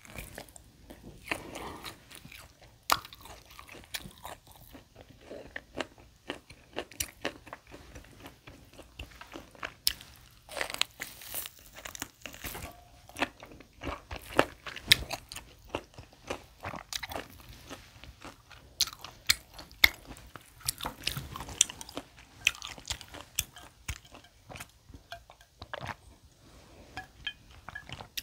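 Close-miked eating: a person biting and chewing tomahawk steak, with a steady run of irregular crunchy clicks and smacks and a few louder bites.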